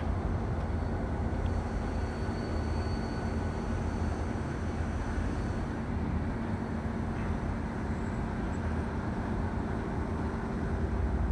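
Diesel road-switcher locomotives running with a steady low drone as they pull a covered hopper away at walking pace.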